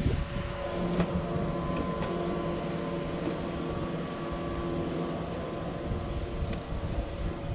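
Electric motor of a camper van's power awning running steadily as the awning rolls out, with a few faint clicks from the mechanism.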